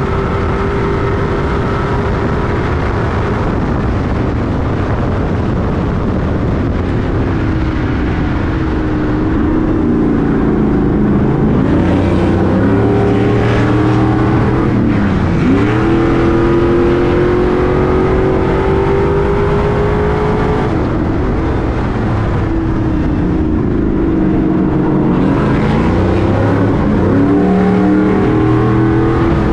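Stadium Super Truck V8 engine under race throttle. Its pitch holds steady at first, then drops and climbs again several times as the truck slows and accelerates.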